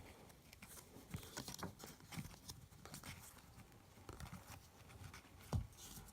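Faint clicks and taps of trading cards being handled and flipped through one by one, with one sharper tap about five and a half seconds in.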